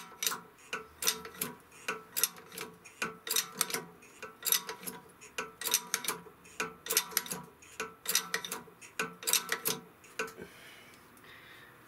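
Hand-pumped hydraulic shop press being pumped under load: each lever stroke gives a sharp metallic click, about two to three a second, and the clicking stops about ten seconds in. The press ram is forcing a rubber-metal bushing (silent block) out of a control arm under several tonnes of pressure, and the bushing has just started to move.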